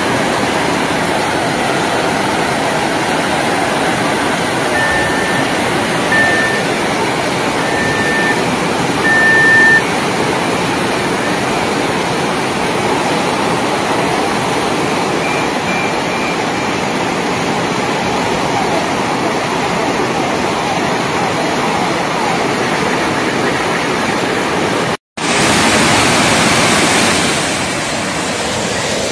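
Floodwater rushing down a street in a loud, steady torrent. About five seconds in, four short high beeps sound over it. Near the end the sound cuts out for a moment, then the rushing water returns brighter.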